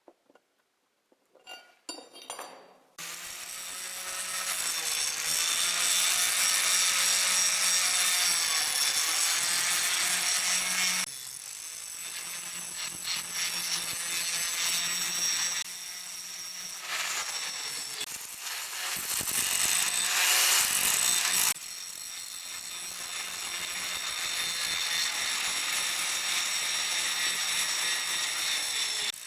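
A few light clicks, then an electric power tool starts and runs steadily, working on rusty steel pliers, with a low motor hum under a loud, high, rough grinding noise. Its loudness changes abruptly several times.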